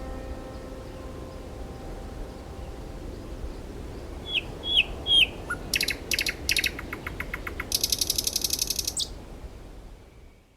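A lingering musical tone fades away. A bird then gives three short rising chirps, followed by a run of sharp clicking notes and a fast, high trill, all over a steady hiss. The sound cuts off near the end.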